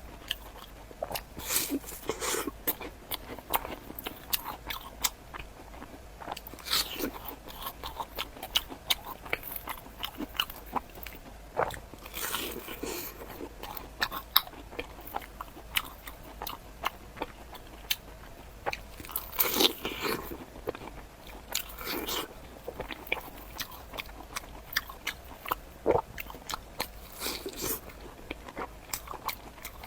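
Close-miked eating of crunchy fried bread: crisp bites every few seconds and chewing, with many small mouth clicks between.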